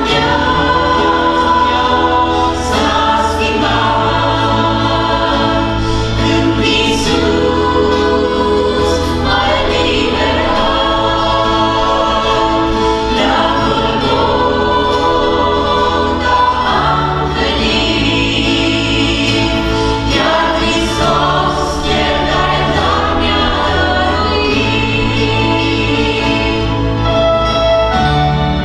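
A small worship group of mostly women singing a gospel song together, accompanied by acoustic guitar, electric bass and keyboard, with sustained bass notes under the voices.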